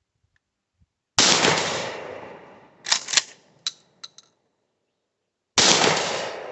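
Two blasts from a 12-gauge Stevens 320 pump-action shotgun with a 28-inch barrel, firing number 8 birdshot, about four seconds apart, each fading out over a second or so. Between them the pump is worked, a few sharp metallic clacks.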